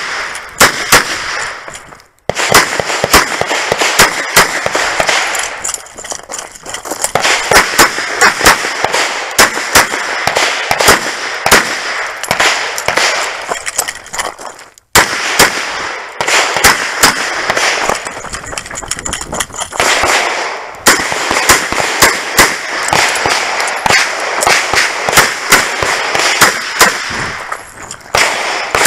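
A revolver firing rapid strings of sharp shots, with short pauses between the strings.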